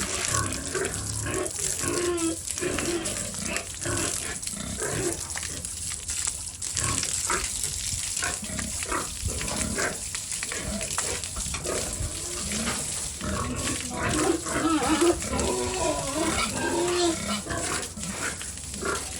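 Pigs grunting, a run of short, repeated grunts throughout.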